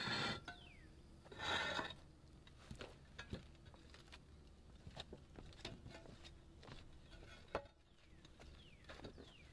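Concrete roof tiles being picked up and handled: two short scraping rasps in the first two seconds, then scattered light clacks and knocks of tile against tile, with one sharper knock late on.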